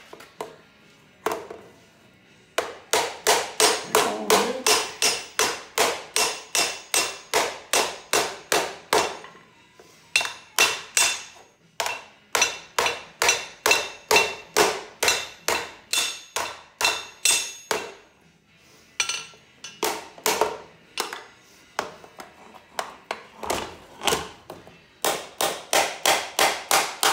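Hand hammer striking the tiller's sheet-metal chain case on a steel anvil, about three ringing metallic blows a second in runs with short pauses. The case is being beaten back into shape after it was badly bent.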